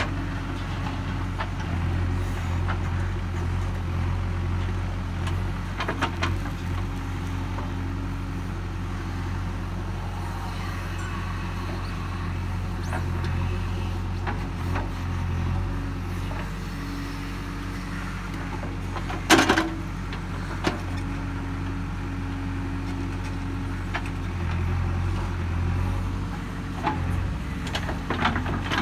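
JCB 3DX backhoe loader's diesel engine running steadily under load as the backhoe digs and dumps soil, swelling and easing with the hydraulic work. A few sharp knocks stand out, the loudest about two-thirds of the way through.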